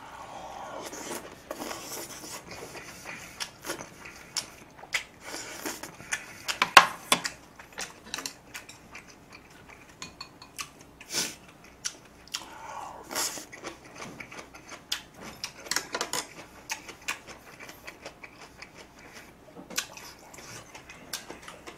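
Close-miked eating: chewing mouthfuls of soft braised tofu with beef and rice, with scattered clicks and clinks of a spoon and chopsticks against bowls and the pot.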